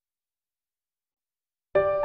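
Dead silence, then background music with piano-like keyboard notes cuts in abruptly near the end.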